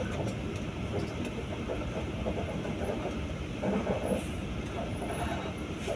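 Steady rumble of a moving bus's engine and road noise, heard from inside the cabin, with a few louder swells.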